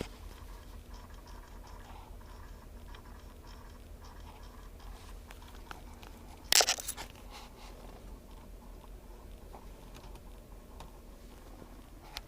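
Faint, irregular clicking from behind the dash cluster of a 2008 Ford F150, over a steady low hum; the owner suspects a failing A/C-heat actuator. A brief loud scraping noise comes about six and a half seconds in.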